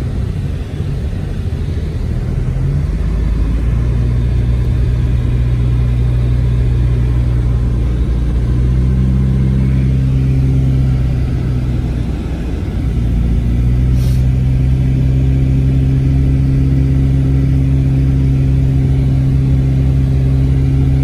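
Car engine and tyres heard from inside the cabin while driving on a wet road: a steady engine hum over road noise, with the engine note stepping down and back up a few times. A single sharp click sounds about 14 seconds in.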